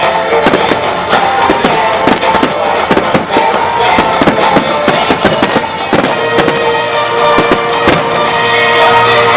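Starmine fireworks barrage: shells bursting in quick succession, several bangs a second with a heavy one near the end, over loud music played with the show.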